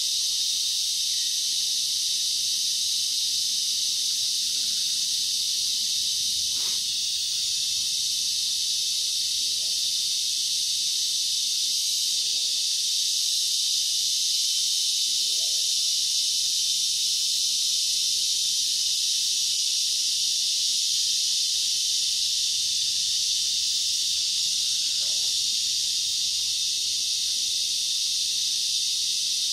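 Steady, high-pitched insect chorus from the tropical forest, an unbroken shrill hiss, with a few faint short calls underneath.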